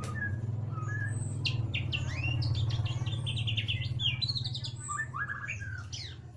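White-rumped shama singing a fast, twittering 'ngeriwik' song of rapid repeated notes and whistled glides, densest in the middle and tailing off near the end. A steady low hum runs underneath.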